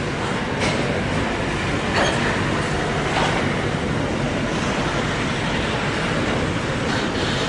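Container freight wagons rolling past on the rails: a steady rumble of steel wheels on track, with a few faint sharp clicks from the wheels passing over the rail joints.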